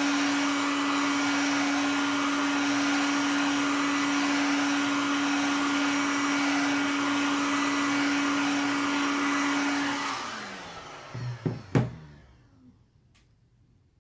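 Handheld hot-air blower running with a steady hum and fan rush, warming the phone's back glass to soften its adhesive. It is switched off about ten seconds in and winds down with a falling tone, then two sharp knocks follow.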